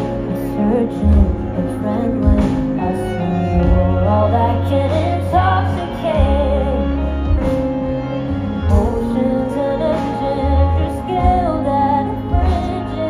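Live band playing through a large outdoor PA, heard from within the crowd: drum kit, electric guitars and heavy bass, with a melody line wavering over the top.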